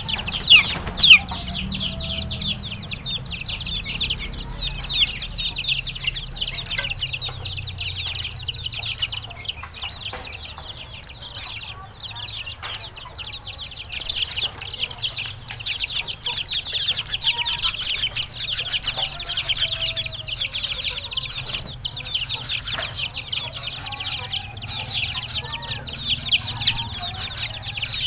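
Chickens cheeping and clucking in a dense, continuous chorus of quick, high cheeps. A few sharp knocks come about a second in.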